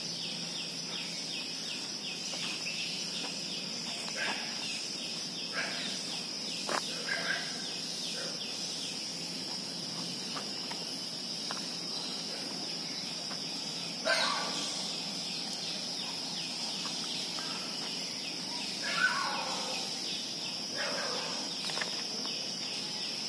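Steady, high-pitched drone of an insect chorus, with a few birds calling over it now and then, the loudest call about halfway through.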